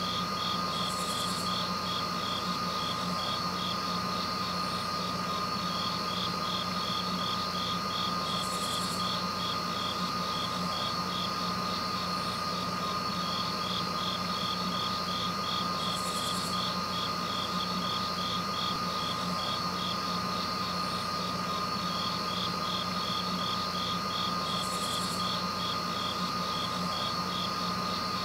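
Insects chirping in a rapid, even pulse, with a short higher buzz about every eight seconds, over a steady low hum and a steady high whine.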